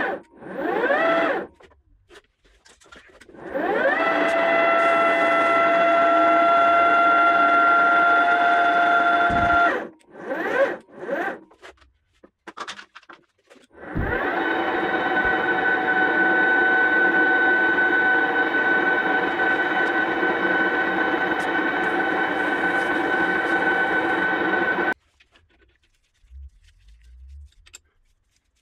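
Boxford VM30 milling machine's spindle motor starting up with a rising whine and running steadily for about six seconds before stopping. After a few seconds of short knocks, it starts again, runs for about ten seconds and cuts off suddenly.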